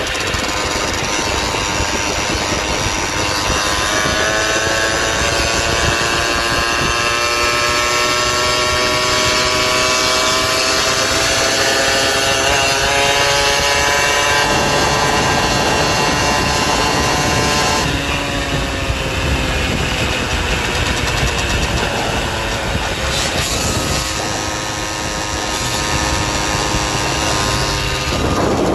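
Small gas engine of a motorized bicycle running under throttle. Its pitch climbs steadily for over ten seconds as the bike gathers speed, drops suddenly about 18 seconds in, then holds fairly steady.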